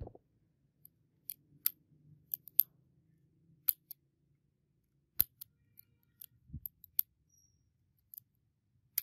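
A top-break revolver's action worked by hand: a string of sharp metallic clicks as the hammer is cocked and let down and the cylinder turns, with the frame snapped open near the end.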